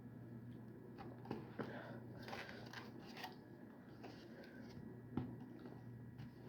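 Faint eating sounds: soft chewing and rustling with a few small clicks, the sharpest about five seconds in, over a low steady hum.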